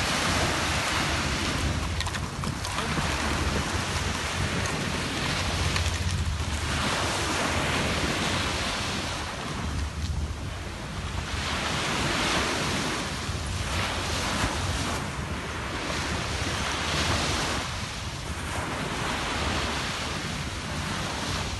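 Small sea waves breaking and washing up a sandy shore, swelling and fading every few seconds, with wind rumbling on the microphone.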